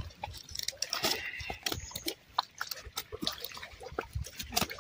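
Freshly caught fish flopping on stone and being handled by hand: a run of irregular wet slaps and taps.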